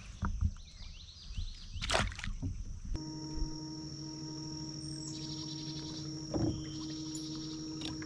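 Knocks and water noise from a kayak on the water, with birds chirping and a steady high insect-like whine. About three seconds in, background music with sustained tones starts and carries on to the end.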